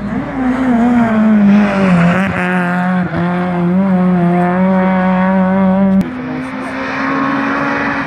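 Rally car engine under hard load as it passes on the stage, its note sagging then holding steady, with abrupt changes at gear shifts about two, three and six seconds in; it is loudest in the middle and a little quieter after the last shift.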